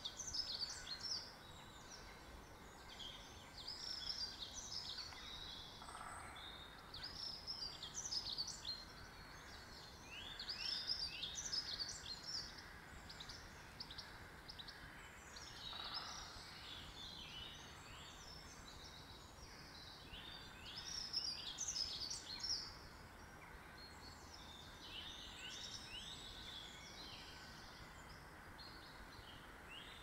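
Small songbirds singing: short phrases of quick, high chirps and trills that recur every two to three seconds, over a faint steady hiss of outdoor ambience.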